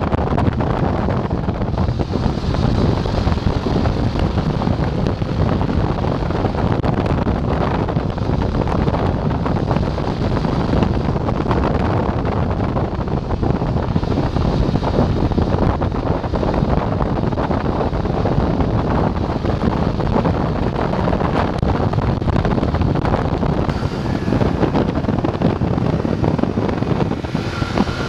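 BMW F 850 GS parallel-twin engine running under way while the motorcycle rides on, heavily mixed with steady wind buffeting the microphone.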